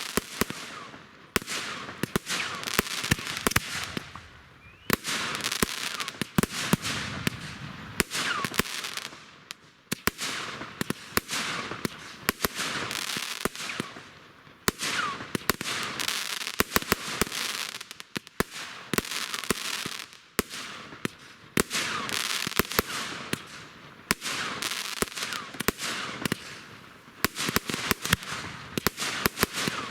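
Fireworks going off continuously: sharp bangs and dense crackling come in waves every couple of seconds, with short whistles rising through some of the bursts.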